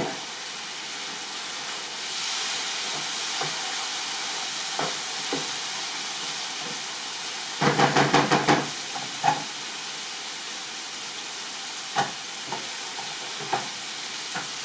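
Chicken tikka masala gravy sizzling steadily in a pan on the stove, with a stirring utensil knocking against the pan: a quick run of knocks about eight seconds in, and a few single knocks elsewhere.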